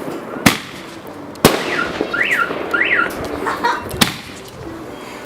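Fireworks going off: four sharp bangs a second or more apart. In the middle, a high whistle rises and falls three times.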